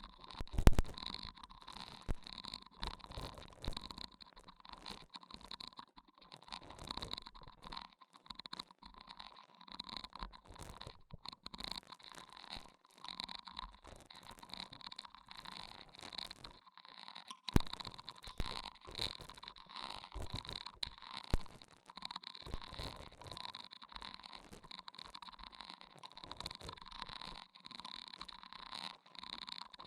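Close-miked ASMR trigger sounds: a continuous, irregular stream of soft scratching, crackling and small clicks, with a few sharper clicks standing out.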